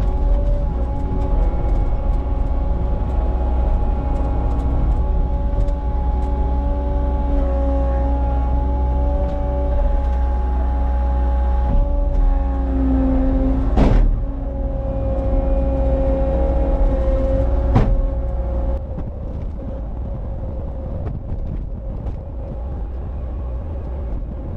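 Cat 279 compact track loader's diesel engine running under load, a heavy low rumble with a steady whine over it. Two sharp knocks come about 14 and 18 seconds in, and after the second the rumble eases and the machine runs quieter.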